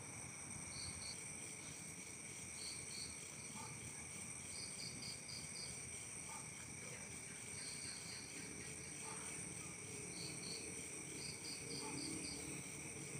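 Crickets singing: a steady high-pitched trill at several pitches, with one cricket chirping in short runs of two to five chirps every second or two.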